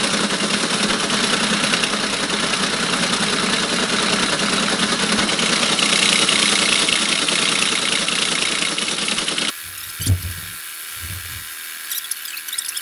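Teletype ASR 33 printing incoming text: a fast, continuous mechanical clatter of the typing mechanism. It cuts off abruptly about three-quarters of the way through, leaving a quieter stretch with a couple of low thumps.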